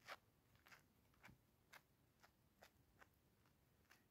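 Faint soft tearing strokes of feathers being plucked from a dove by hand, about two pulls a second.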